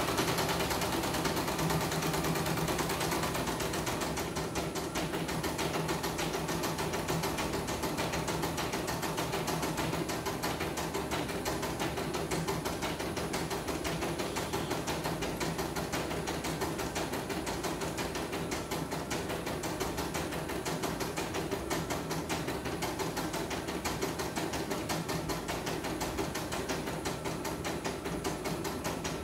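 Portable computerized embroidery machine stitching a test design after servicing, its needle mechanism running in a rapid, steady rattle.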